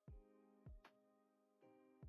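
Faint background music: held synth-like chords with a deep kick drum hitting three times.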